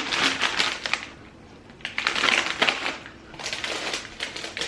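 Crinkly plastic snack packets being handled and lifted out of a box, crackling in three spells with short pauses between.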